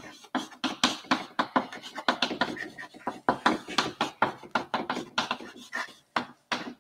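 Chalk writing on a chalkboard: a quick, irregular run of taps and scratches as words are written out, stopping shortly before the end.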